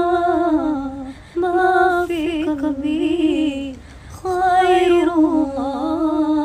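A woman singing an Islamic devotional song (sholawat) unaccompanied, in three long drawn-out phrases whose held notes waver with ornaments and fall in pitch at their ends.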